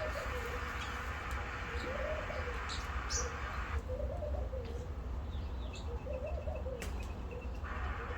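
Garden birds calling: a low call repeated about every two seconds, with faint higher chirps between.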